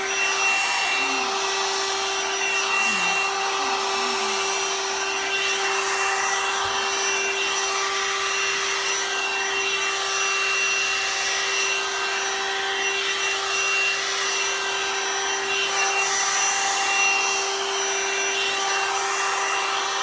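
A two-in-one hot air styling brush (hair dryer and volumizer brush) running: a steady rush of blown air over a constant motor hum.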